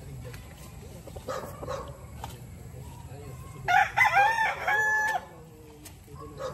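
A rooster crowing once, about four seconds in: a few quick notes running into a longer held final note, about a second and a half in all.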